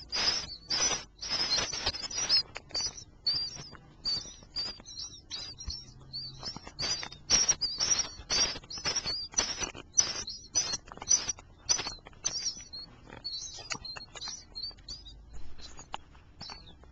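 Baby birds chirping: a long, quick run of short, high cheeps, louder and denser in the first half and thinning toward the end.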